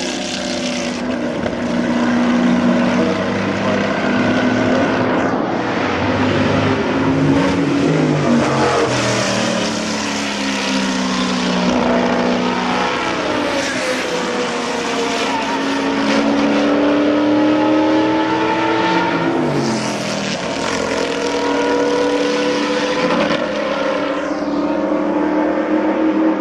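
Big-block V8 engines of Can-Am race cars running hard, the engine note climbing as they accelerate and dropping back at gear changes.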